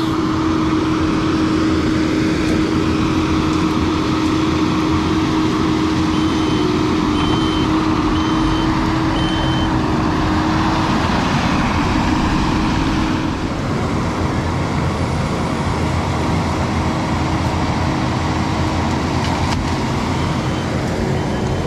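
Skid steer's diesel engine running hard under hydraulic load as it works a tree shear, with a steady whine over the engine noise. Four short high beeps, like a reversing alarm, sound between about six and ten seconds in, and the engine eases off slightly a little past halfway.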